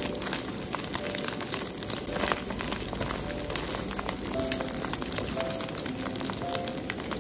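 Small dried fish frying in hot oil in a wok, a steady sizzle full of fine crackles as they are stirred, now fried to a light gold. Soft background music notes come and go underneath.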